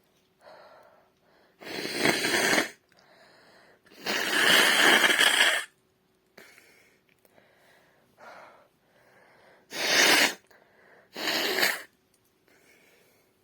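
A woman sneezing and blowing her nose into her hand: four loud bursts, the second one longer than the others, with short breaths drawn in between.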